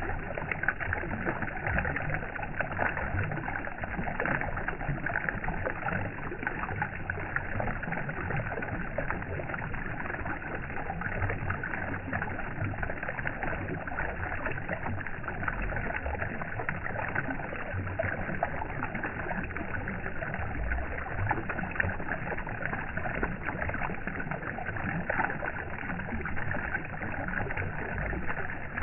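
Steady flowing water, an even rushing with no pauses or changes.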